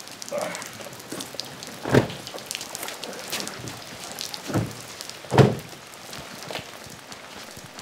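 Steady rain falling, with a few sudden knocks; the loudest, about five and a half seconds in, is a car door being shut.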